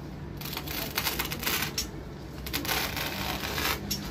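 Utility knife slicing through the backing of an artificial grass roll, a rasping scrape that comes in two runs of quick strokes, about a second in and again near three seconds.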